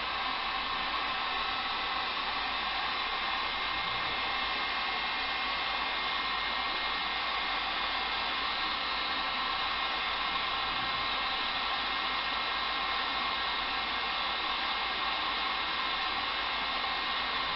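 A small fan or blower running steadily: an even whirring rush with a few faint, steady whistling tones in it.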